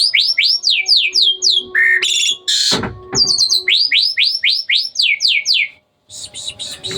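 Hybrid Asian pied starling (jalak suren) singing: fast runs of loud whistled notes, each sliding sharply down in pitch, about five or six a second. Two such runs are split by a short, harsher burst, and the song breaks off briefly near the end.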